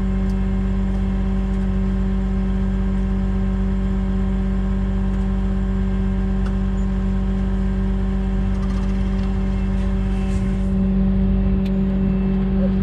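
Diesel engine of a Peterbilt heavy wrecker idling steadily with an even, unchanging hum, swelling slightly about eleven seconds in.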